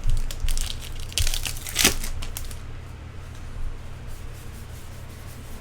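Trading cards and their paper packaging rustling and crinkling as they are handled, in a few quick bursts over the first two and a half seconds, over a low steady hum.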